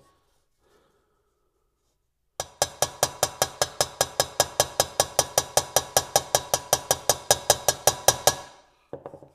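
Small round-ended hammer lightly tapping a dent out of a sheet-metal scooter front fender: a fast, even run of about five or six taps a second, each with a short metallic ring. The tapping starts a couple of seconds in and stops near the end.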